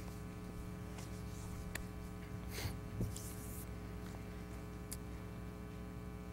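Steady electrical mains hum, with a few faint ticks and a short rustle of Bible pages being handled about two and a half to three and a half seconds in.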